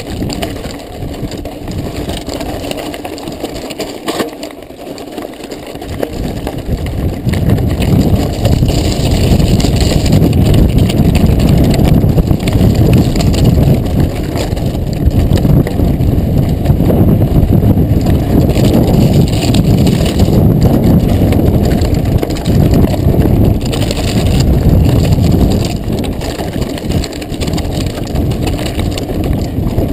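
Mountain bike ride noise picked up by a camera on the rider: tyres rumbling and crunching over loose volcanic rock and gravel, with the bike and camera rattling. A steady low rumble that grows louder about six seconds in as the bike picks up pace on the rough trail.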